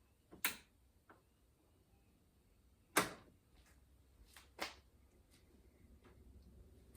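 A few short, sharp clicks and knocks from car door parts being handled, the loudest about three seconds in and two more close together near the middle.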